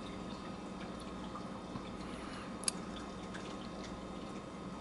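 Steady water trickle and hum of a reef aquarium's circulating water and pumps, with a single faint click about two and a half seconds in.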